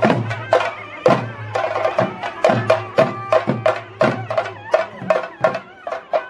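Traditional temple percussion: sharp, ringing drum strokes, roughly two to three a second, over a steady low tone.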